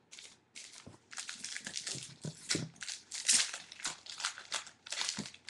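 Trading cards and plastic card holders being handled, rustling and crinkling in many short, irregular scrapes.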